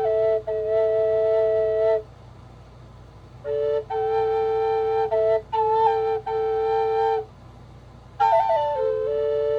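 Flute music in slow, breathy phrases, with a held drone note sounding under the melody and two pauses between phrases. After the second pause a phrase opens with a quick ornamented fall in pitch, then settles on long held notes.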